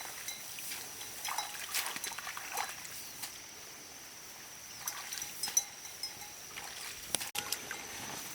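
Water trickling and splashing, with scattered small clicks and knocks, over a steady high thin tone.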